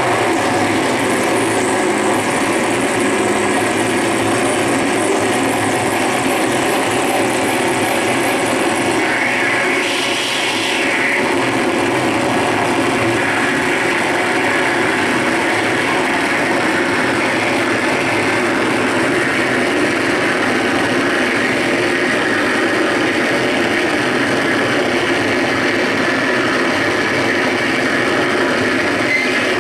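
Harsh noise music from a large rig of chained effects pedals: a dense, loud, steady wall of distorted noise, with a high hiss over the first several seconds and a short swell in the upper register around ten seconds in.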